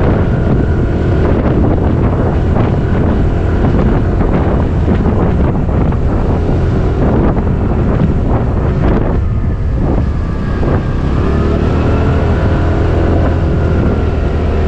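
TVS Jupiter 125 scooter's single-cylinder engine running under way, buried in heavy wind noise on the action camera's microphone.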